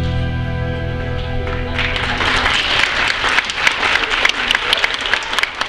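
The accompaniment's last held chord rings out. About two seconds in, an audience starts applauding with many separate claps.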